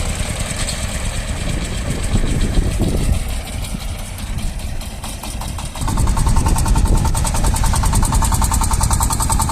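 Shifeng SF-240 mini tractor's single-cylinder diesel engine chugging under load while its rotary tiller is dug into the soil. About six seconds in it gets louder, with a steady whine over the rapid engine beat.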